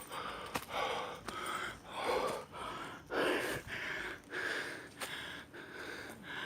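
A person breathing hard and fast, quick heavy breaths in and out about one and a half times a second: winded from climbing a steep hill trail.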